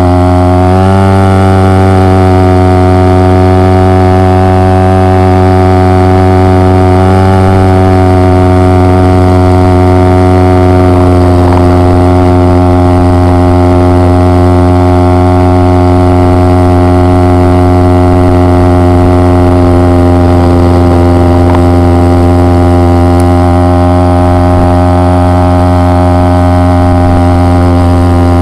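An engine running steadily, close to the microphone, its pitch lifting slightly about a second in and again around seven seconds.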